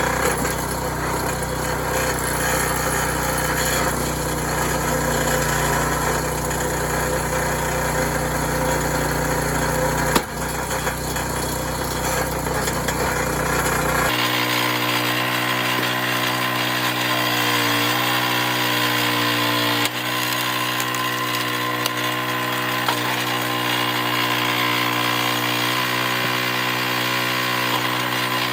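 Engine of a gas-powered hydraulic log splitter running steadily while splitting wood, with a sharp knock about ten seconds in. About fourteen seconds in, the deep bass of the sound drops out abruptly and the running carries on.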